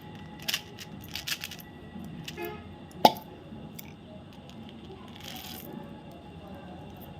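Chocolate packaging being handled and opened: scattered crinkles and tearing of wrapper or card, with a sharp click about three seconds in and a short rustle a couple of seconds later.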